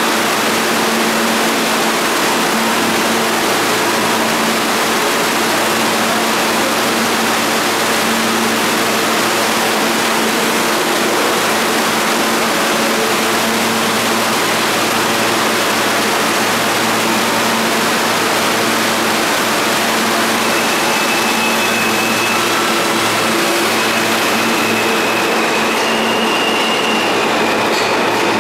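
R160 subway train at the station: a steady loud rumble with a constant electric hum. A few thin high tones come in near the end.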